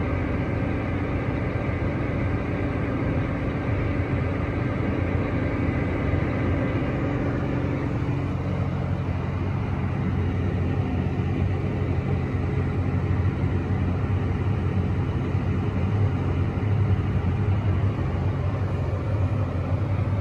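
Tractor engine running steadily under load with a low, even drone. A higher steady whine in it stops about eight seconds in.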